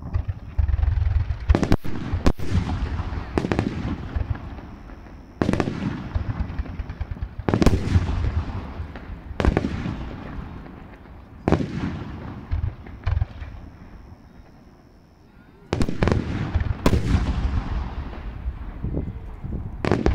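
Aerial firework shells bursting overhead one after another: about a dozen sharp booms, each trailing off in a long rolling rumble, with a short lull about three quarters of the way through.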